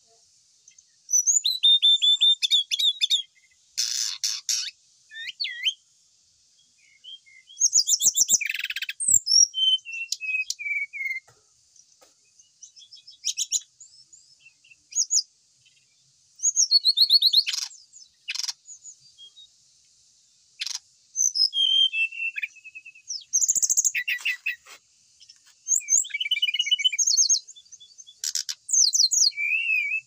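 Brown-chested jungle flycatcher singing: short, varied phrases of clear whistles and rapid trills, each a second or two long, repeated with brief pauses between.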